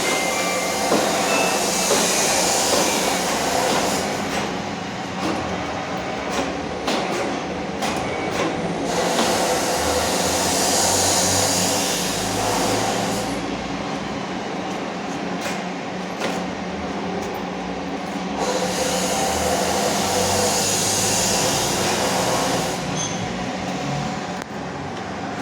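Niigata universal milling machine running with a steady mechanical hum. A higher hiss rises and fades three times, roughly every eight or nine seconds.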